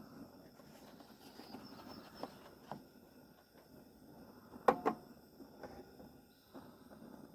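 A few light clicks and knocks over a faint steady background, the loudest a quick pair of sharp knocks a little past halfway.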